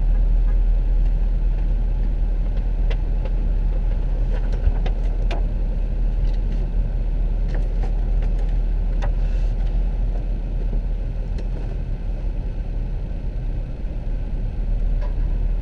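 Steady low car rumble inside the cabin, engine and road noise as the car idles and creeps along, with scattered light clicks.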